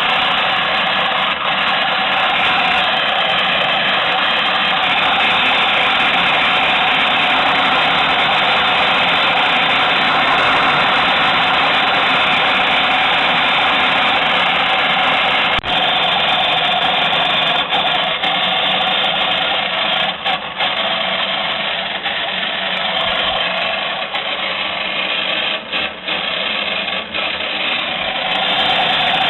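Small electric motor of a 1960s MFZ Fuchs toy twin-tub washing machine running steadily, with a few brief dips in the second half. The motor is rusty, so the tub turns slower than it should.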